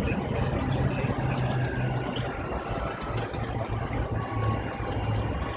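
Boeing 747 flight-deck noise during the landing roll as the jet slows down the runway: a steady low rumble of engines and airframe with a low drone that wavers in strength.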